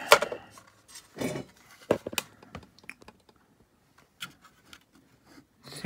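Handling noise from fingers moving the wiring inside the opened case of an 858D hot air rework station: scattered clicks, taps and scrapes, the sharpest just at the start.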